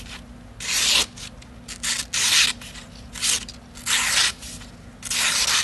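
Hand-forged Damascus pocket knife blade slicing thin strips from a sheet of paper: a run of short rasping strokes, about five or six, each a fraction of a second long.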